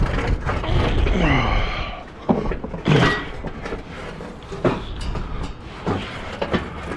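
A heavy metal scrap item being shifted and wrestled: a string of knocks and clanks, the loudest, briefly ringing, about three seconds in.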